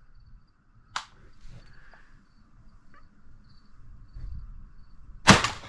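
A single loud shotgun shot near the end, fired at an incoming dove, which falls. Before it, faint cricket chirping and one sharp click about a second in.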